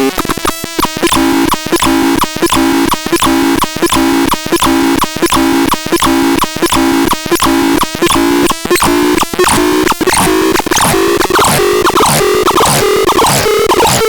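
Harsh electronic noise from the Noiseratu: a buzzy, pitched tone pulsing about twice a second with short gaps between pulses. From about ten seconds in, sweeping glides are added on top.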